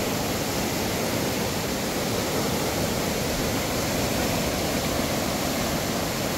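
A rain-swollen river rushing steadily.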